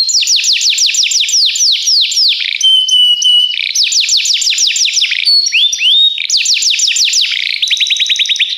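Domestic canary singing a loud, continuous song of fast repeated phrases. It runs through quick series of down-slurred notes, gives a short held whistle about three seconds in, and ends on a rapid even trill.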